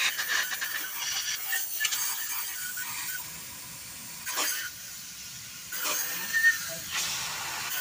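Metal engine parts and hand tools being worked during an engine service: scattered clicks and knocks with a few short, high squeaks over a steady hiss. The loudest knocks come a bit over four seconds in and again around six seconds in.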